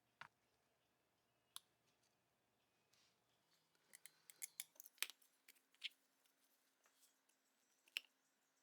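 Scattered faint, sharp clicks and snips, with a quick cluster of them about four to five seconds in.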